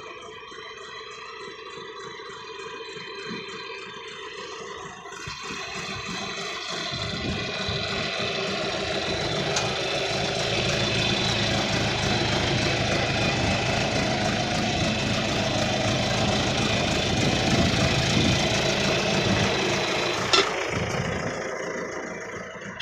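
John Deere 310A backhoe's engine running steadily. It grows louder about a third of the way in and holds there, with one sharp click near the end before the sound eases off.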